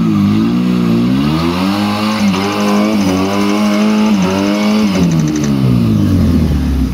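Modified off-road trial 4x4's engine revving hard as it claws up a muddy slope. The revs climb over the first couple of seconds, hold high with short dips, then fall away about five seconds in as the vehicle crests the bank.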